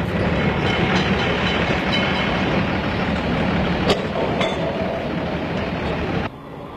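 Tram running on street rails: a steady rumble and rattle of wheels and motor, with a sharp click about four seconds in. The sound cuts suddenly to a quieter rumble near the end.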